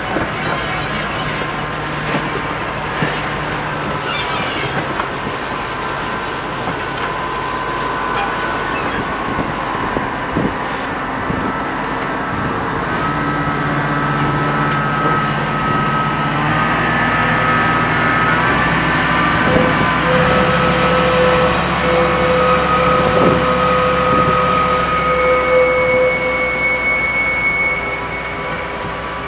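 A slow shunting train of locomotives and wagons rolling past, the wheels clicking over the rail joints. Thin steady squeals come and go through the second half, louder as the rear of the train draws level.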